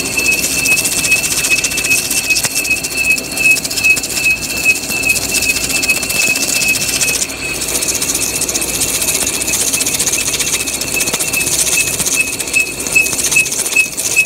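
Lathe parting a spinning steel ring, the tool cutting in with a steady high-pitched squeal that pulses evenly a few times a second over a hiss of cutting.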